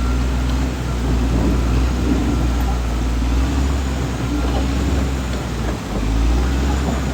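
Caterpillar D6R XL bulldozer's diesel engine running steadily under load, with a deep continuous drone, a few faint knocks and a rushing hiss of river water.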